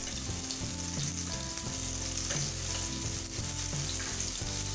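Chopped onion sizzling as it fries in hot oil in a pressure cooker, stirred with a spatula. Underneath is background music of held notes that change every second or so.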